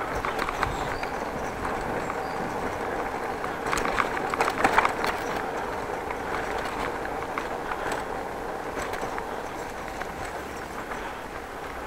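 Bicycle riding along a city street: steady rolling and wind noise with light rattles from the bike, and a burst of clattering about four seconds in.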